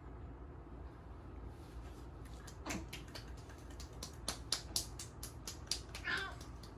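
A run of sharp, irregular clicks and taps that grows busier about four seconds in, with two brief squeaks, the first falling in pitch.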